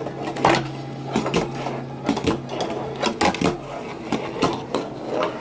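Tech Deck fingerboard clattering on a wooden table and ramp: irregular sharp clacks and knocks, two or three a second, as the little board is popped, flipped and landed.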